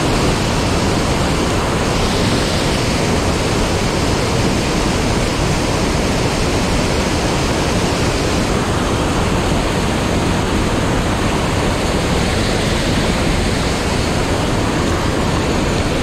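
Steady, loud rushing of stream water spilling over a low weir close by.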